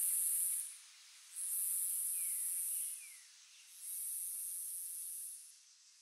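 Cicadas buzzing, a very high-pitched shrill drone in phrases about a second and a half long separated by short pauses, three times, each phrase a little quieter than the last.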